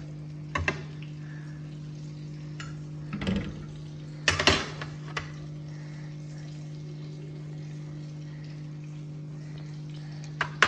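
Kitchen handling sounds: a few short knocks and clatters, the loudest about four and a half seconds in, as bread rolls are cut with a knife and handled over a plate. A steady low hum runs underneath.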